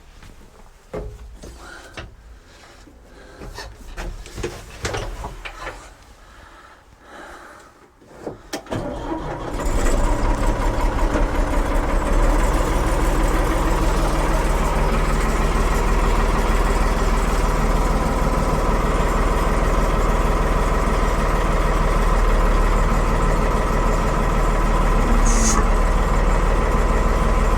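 Light clicks and knocks, then about ten seconds in the 1975 Ford 550 backhoe's engine starts and settles into a steady run, loud and low.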